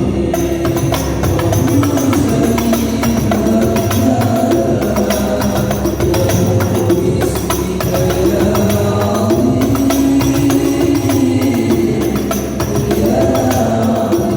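Sholawat devotional music with frame drums such as rebana or hadroh beating a steady, dense rhythm under a sustained melody.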